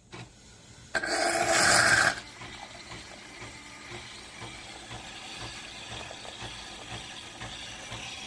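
Nespresso Lattissima Pro espresso machine running: a small click, then about a second in a loud buzzing burst lasting about a second, after which the machine runs on more quietly and steadily.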